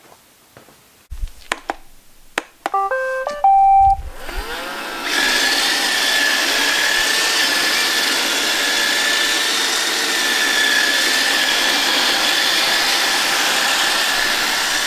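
Roomba 770 robot vacuum starting up: a few clicks, a short stepped beep melody, then its motors spin up with a rising whine and run steadily with a high whine. It is still pretty noisy, with its newly fitted side brush motor spinning.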